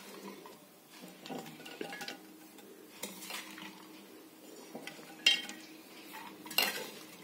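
Scattered clinks and knocks of a glass jar being handled as carrot and beetroot pieces are put into it, the sharpest about five seconds in.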